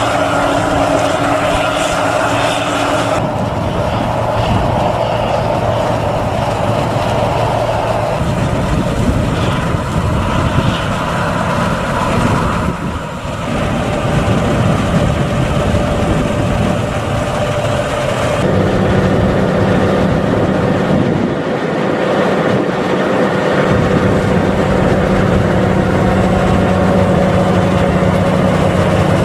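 Heavy corn-harvest machinery running at work: a John Deere 9780 CTS combine harvester unloading, a tractor-driven Stade corn mill, and a John Deere 7230R tractor with an overload trailer. A steady, loud engine drone with held tones that changes abruptly a few times as the sound moves from one machine to the next.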